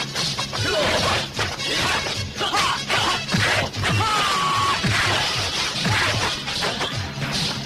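Background music with a steady beat, overlaid with the punches, smacks and crashing impacts of a martial-arts film fight.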